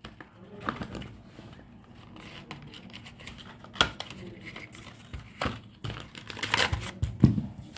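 A cardboard medicine box being opened by hand, with its paper leaflet crinkling and rustling: scattered rustles and clicks, a sharp one about four seconds in and a busier stretch near the end.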